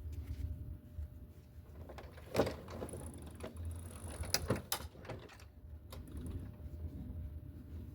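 A few sharp mechanical clicks and clunks over a low rumble, as the Etesia Pro 46 mower is handled in the moments before its engine is started. One clunk comes about two seconds in, and two more close together about halfway through. The engine is not yet running.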